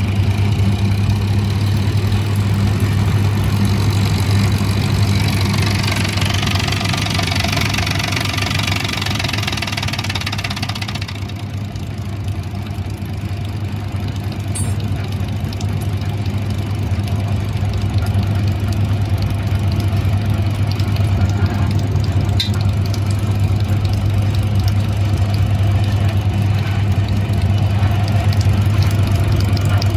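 Diesel engine running steadily at idle after being started with a freshly repaired fuel pump. A hiss rises over it from about four seconds in and cuts off suddenly about eleven seconds in.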